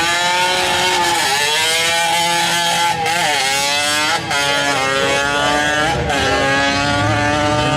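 A small motorcycle engine revving hard at high pitch. Its note climbs, drops sharply and climbs again several times, with brief dips in loudness about three and four seconds in.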